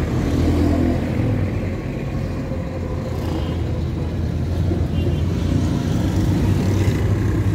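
Steady low rumble of a car's engine and tyres, heard from inside the moving car, with street traffic around it.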